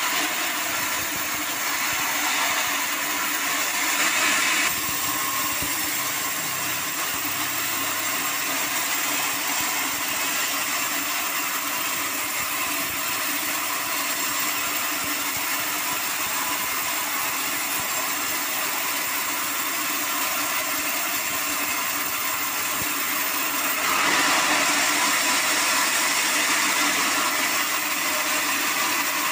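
Band sawmill running, its band blade cutting lengthwise through hard acacia wood: a steady whirring, hissing saw noise over the mill's drive. It is louder for the first few seconds, drops a little, and grows louder again about five seconds before the end.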